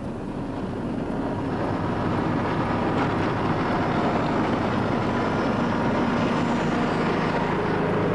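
Motor grader's diesel engine running steadily under load as the grader pushes shoulder gravel with its blade. It grows louder over the first two seconds as the grader comes close, then holds level.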